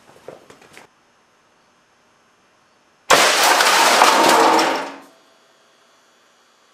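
A large compressed-air cannon firing at 500 psi: a sudden loud blast as the spring-opened ball valve dumps the air tank through the barrel, with air rushing for about two seconds before it fades out. A 3200-grain lead slug is hitting an old desktop computer.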